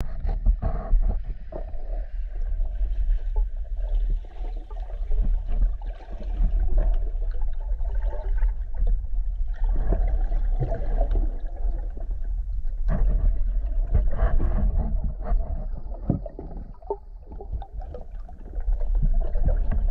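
Underwater sound through a camera housing: a steady low rumble with scattered clicks, and bursts of bubbling every few seconds from a scuba diver's exhaled breath.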